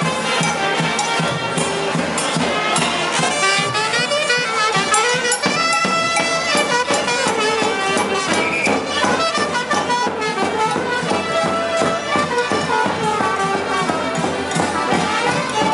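Traditional Andean procession band music: wind instruments playing a melody over steady drum beats.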